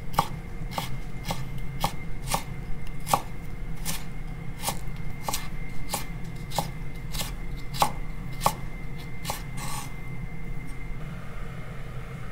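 Kitchen knife slicing a carrot into thin matchsticks on a wooden cutting board: even knocks of the blade on the board, about two a second, which stop about ten seconds in.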